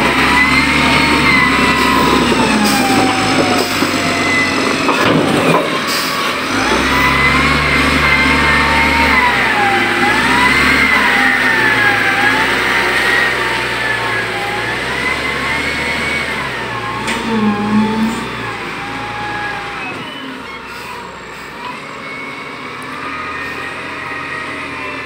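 Wheel loader's diesel engine running under load and revving up and down, with a whine that rises and falls along with the engine speed as it strains to pull a wrecked dump truck. It eases off and grows quieter about twenty seconds in.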